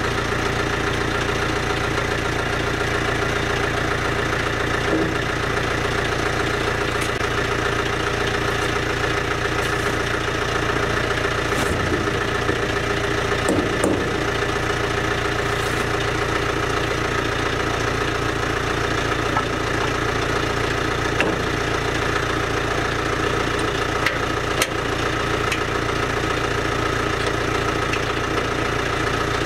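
Tractor engine idling steadily, with a few light metal clicks as parts are fitted by hand.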